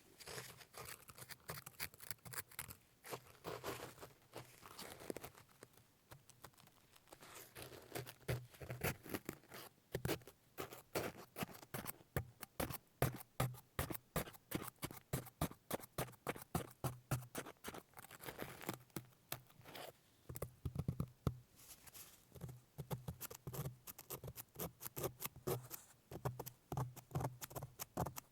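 A utensil scraping and chipping at the hardened salt crust of salt-baked pork, a fast run of scratchy taps. The taps settle into a steady rhythm of about three a second after the first several seconds.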